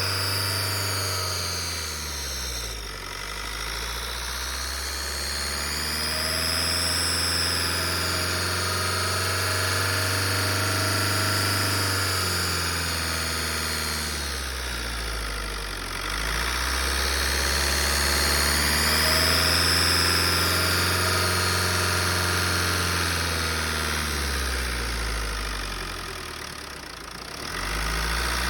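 Ford 1.8 TDCi four-cylinder turbodiesel running, its speed dropping and climbing again about three times, with a high-pitched whine from the intake side that rises and falls with engine speed. The owner suspects the turbo, EGR valve or intake.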